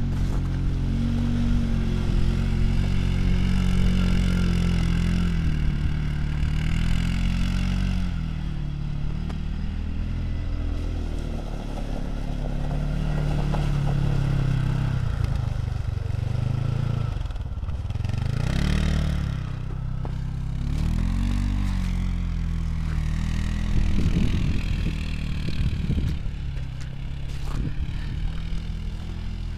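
Off-road vehicle engine running under load, its pitch rising and falling repeatedly as the throttle is worked. A brief rushing noise comes a little past halfway.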